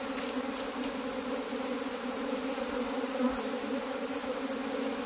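A swarm of honey bees buzzing, a steady hum of many wings; the bees are stirred up and flying as the swarm is brushed off a plastic sheet.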